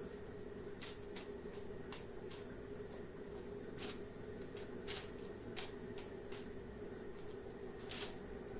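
Faint, irregular soft clicks and taps of hands pressing and shaping oiled pide dough, over a steady low hum.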